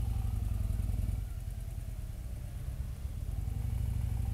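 Touring motorcycle engine running at low speed in slow traffic, its note easing off about a second in and picking up again near the end.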